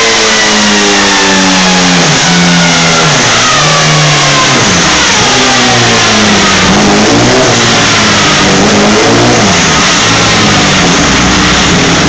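Rotrex-supercharged Suzuki Hayabusa 1400 cc inline-four running on a roller dyno: its revs wind down over the first three seconds, then rise and fall in several throttle blips.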